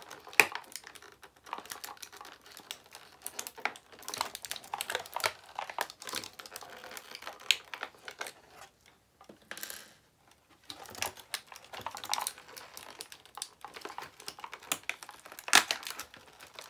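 Crinkling plastic packaging and clicking of a thin pink plastic blister tray as tiny doll accessories are picked out of it by hand: irregular crackles and small taps, with a short smoother rustle about ten seconds in.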